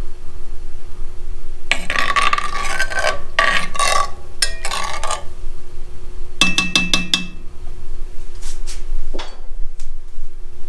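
Metal spoon stirring and scraping inside a cast-iron Dutch oven of broth for a few seconds, then clinking against the pot with a short metallic ring, over a steady low hum.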